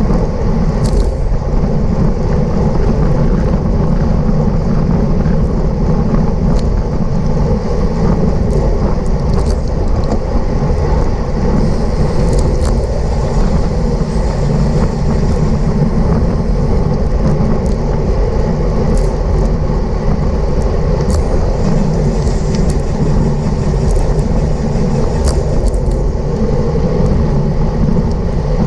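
Wind buffeting the microphone of a camera on a bicycle at racing speed: a loud, steady low rumble, with scattered light clicks over it.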